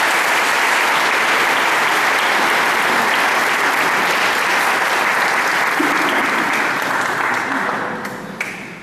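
Crowd applauding steadily after a speech, dying away near the end.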